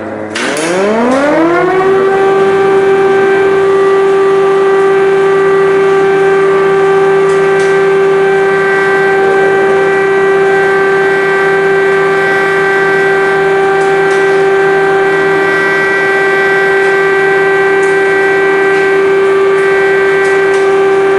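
Civil defense siren winding up in pitch over the first couple of seconds, then holding one loud steady wail with several overtones.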